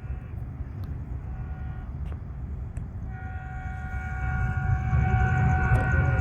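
Metrolink commuter train's horn sounding one long blast, a chord of steady tones starting about three seconds in, over the low rumble of the train, which grows louder. A fainter, shorter horn-like tone sounds in the first two seconds.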